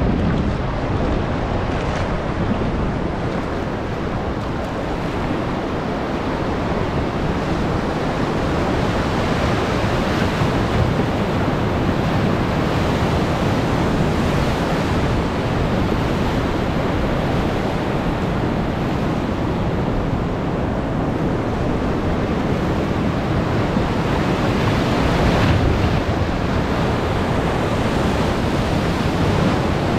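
Whitewater of a large river rapid rushing around a rowed raft, growing louder as the raft drops into the waves, with wind buffeting the microphone. A wave splashes against the raft loudly once, late on.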